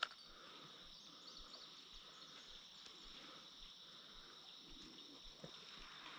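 Faint, steady high-pitched chorus of insects, with a single sharp click right at the start.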